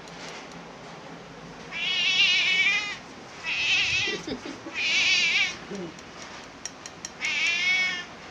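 Domestic cat meowing four times, high wavering meows of about a second each, asking for food because it is hungry.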